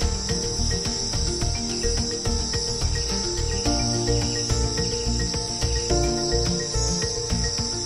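Steady, continuous chirring of an insect chorus, high-pitched, over background music of slowly changing held notes.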